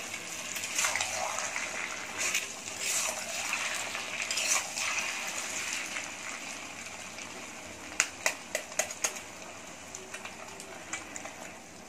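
Sliced potatoes and egg frying in oil in a pan, with a steady sizzle and a metal spatula swishing and scraping through them for the first few seconds. About eight seconds in come several sharp taps.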